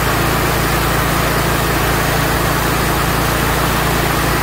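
Kohler 27 hp V-twin engine on a Vermeer SC252 stump grinder running steadily at full throttle, at about 3,300 to 3,400 rpm.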